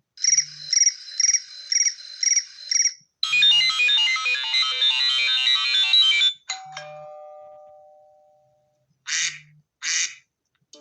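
iPhone ringtones played one after another, each cut off short. First a bright tone repeating about seven times, then a fast run of high chiming notes for about three seconds, then a single struck bell-like tone that rings away, then two short chirps near the end.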